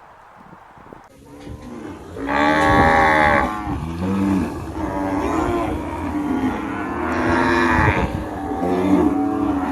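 Cattle mooing: a series of long, drawn-out calls, the loudest about two and a half seconds in and again about seven seconds in.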